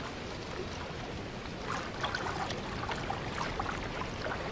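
Ocean water gently lapping and trickling against a floating raft of vegetation: a steady soft wash with faint small splashes.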